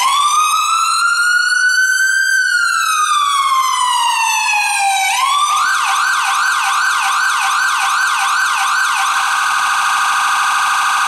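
Whelen electronic ambulance siren through a German-made speaker, cycling through its tones: one slow wail that rises and then falls over about five seconds, then a fast yelp sweeping about three times a second. About nine seconds in it switches to the even faster phaser warble.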